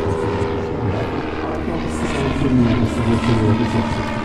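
RWD-5 vintage light monoplane flying past, its single propeller engine running with a steady drone.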